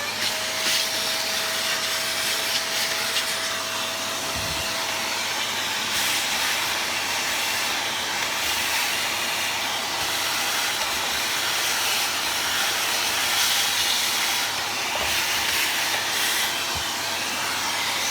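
Vacuum cleaner switched on, its motor whine rising as it spins up, then running steadily with a loud rush of air as the nozzle is worked over a tumble dryer's dusty condenser unit, with a few light knocks of the nozzle.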